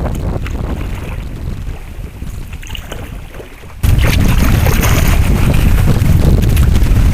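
Wind buffeting the microphone, a heavy low rumble with a few faint clicks. A little past halfway it abruptly gets much louder and stays so.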